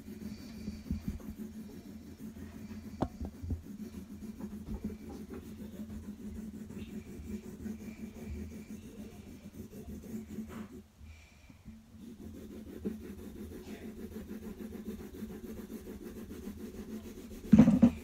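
Graphite pencil shading on paper: the side of the lead rubbed back and forth in a steady scratchy scrubbing, with a short pause about eleven seconds in. A brief louder sound comes right at the end.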